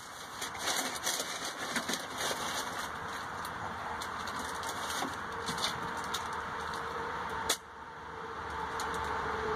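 Scattered light knocks and rustles as a car door is handled into place against the body, over a steady background hiss, with one sharp knock about seven and a half seconds in.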